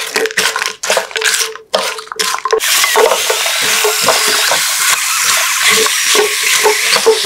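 Sweet potato chips tossed in sticky honey syrup in a hot frying pan with a silicone spatula, making quick repeated scraping and stirring strokes. About two and a half seconds in, a steady sizzle of the syrup sets in under the strokes.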